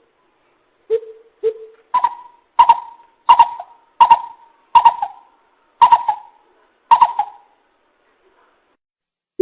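Greater coucal hooting: two low hoots, then a series of seven higher hoots about 0.7 s apart, each trailing into an echo. This is a coucal lure call, used to call in other coucals.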